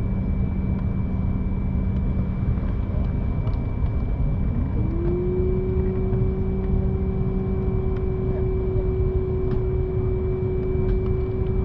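Steady rumble and hum of a running vehicle heard from inside. About four seconds in, a whine rises in pitch and then holds steady.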